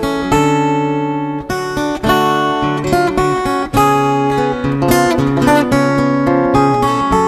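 Background music played on acoustic guitar: a run of plucked and strummed chords, each new note or chord starting sharply and then ringing on.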